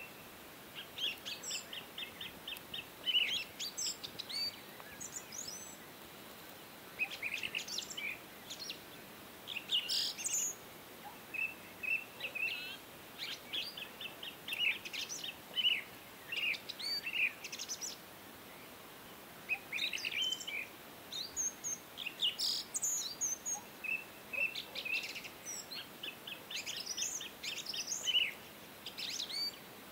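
Small birds chirping and singing in quick trills of short repeated notes, in bouts with brief pauses between them.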